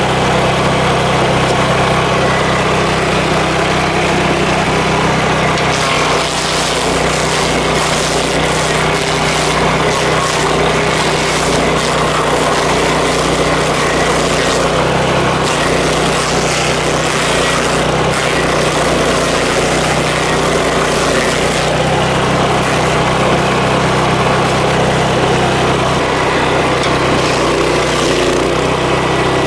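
Power King stump grinder running steadily as its cutter wheel grinds into a two-year-old ash stump. From about six seconds in to about twenty-two seconds in, a rough grinding noise rises over the engine drone, and the drone drops a little in pitch.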